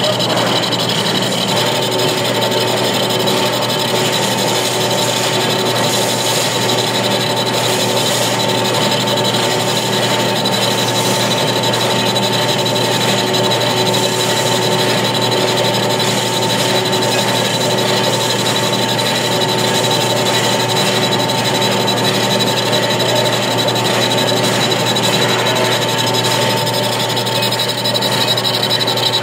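Metal lathe running steadily with a large steel disc spinning in its chuck: an even mechanical noise with several steady whining tones over it.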